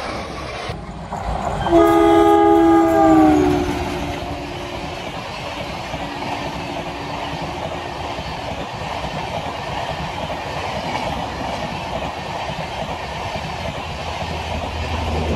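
A WDM-3A diesel locomotive's horn sounds once for about two seconds, its pitch dropping at the end as it passes, then the express's coaches run by with a steady rushing rail noise.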